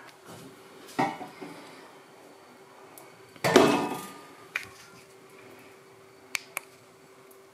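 Kitchenware clattering: a knock about a second in, a louder clatter with a brief ring past the middle, then two sharp clicks near the end.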